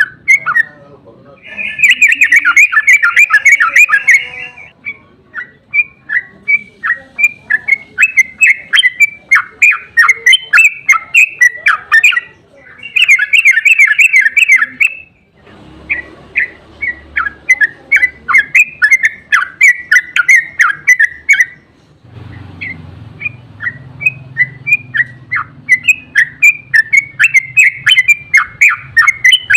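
Yellow-vented bulbul (trucukan) singing its long, rapid chattering 'ropel' song in several bouts of quick, bubbling notes, with the densest, loudest runs about two seconds in and again around thirteen seconds in.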